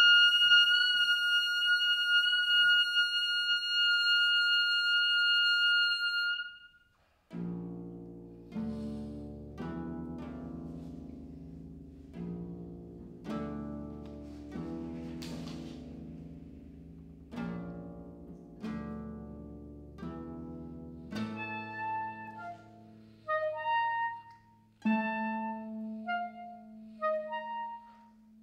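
Saxophone holding one long high note, which stops about six seconds in. Then a concert harp plays repeated low plucked chords that ring and fade, and later higher plucked notes over a held low note.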